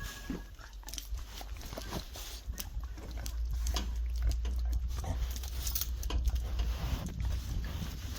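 A dog close to the microphone, making short irregular clicking and snuffling sounds over a steady low rumble.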